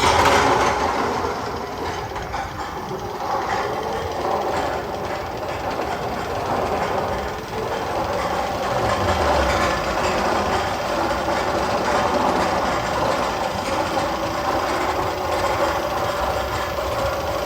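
A recorded train sound effect played in the Magnum XL-200 roller coaster's tunnel: a steady rolling rumble with a clickety-clack of wheels that starts suddenly.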